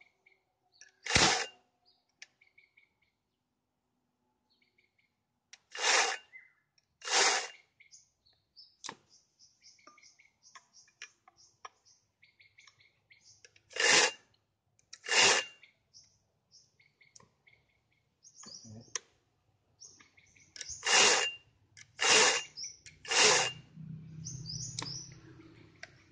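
Pull-starting an Ogawa chainsaw: about eight short pulls on the recoil starter rope, in twos and threes with pauses between, and the engine does not start running. Birds chirp faintly between the pulls.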